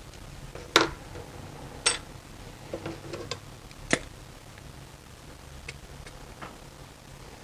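Small hand tools and model parts clicking and tapping against each other and the cutting mat as they are handled: four sharp clicks within the first four seconds, then a few fainter ticks.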